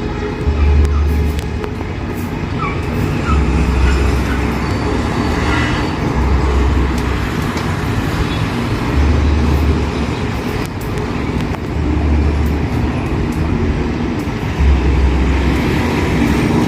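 City street traffic noise: a steady mix of passing cars, buses and trucks, with a deep low throb that repeats about every three seconds.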